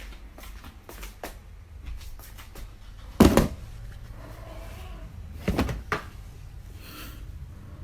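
Scattered small knocks, with a loud bang about three seconds in and another pair of bangs about five and a half seconds in, like a door or cupboard banging.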